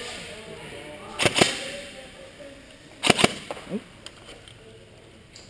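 Airsoft guns firing: two quick groups of two or three sharp cracks, about a second in and about three seconds in, followed by a few fainter ticks.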